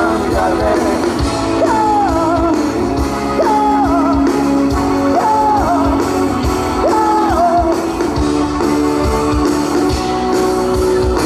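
Live pop-rock band playing over a steady drum beat, with guitar and a melody line that slides down in four repeated phrases, then settles into held notes near the end.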